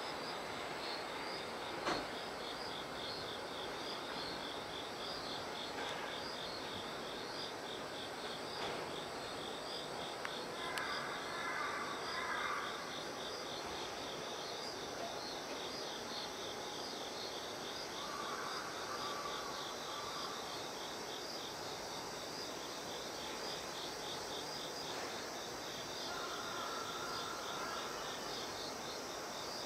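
Crickets chirping: a steady run of evenly repeating high-pitched pulses, with a lower-pitched call breaking in briefly three times, about eleven, eighteen and twenty-six seconds in.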